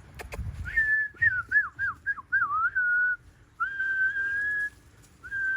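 A man whistling to call puppies to him: a run of quick swooping notes, then a long held note, with another long note starting near the end.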